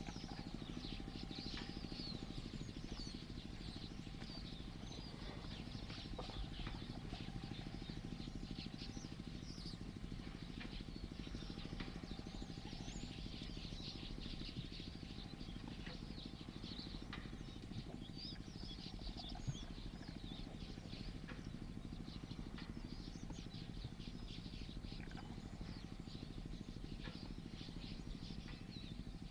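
Wild birds chirping, many short high calls scattered throughout, over a steady low background hum.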